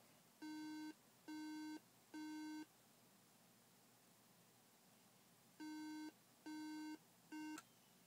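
MacBook Pro sounding its startup alarm: a steady beep of about half a second, three times in a row, a pause of about three seconds, then three more, the last cut short by a click. Three beeps repeating every five seconds are the Mac's startup code for a memory (RAM) fault.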